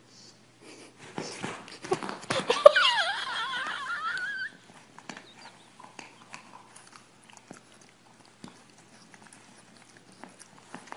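A dog whines with a quickly wavering pitch for about two seconds, after a moment of scuffling. Then there are only light scattered clicks.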